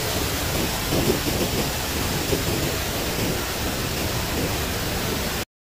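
A swollen, muddy river rushing over rocky rapids: a steady rush of water that cuts off suddenly near the end.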